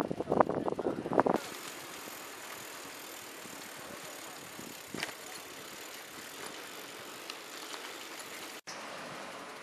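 Steady outdoor background noise, an even hiss, following about a second and a half of gusty rumble that cuts off abruptly; a single faint click comes about five seconds in.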